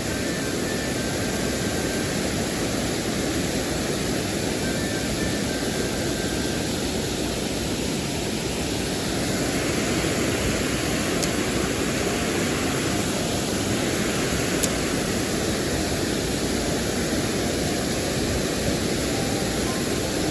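Steady rushing of a mountain stream, an even roar of water over rocks that holds at one level throughout.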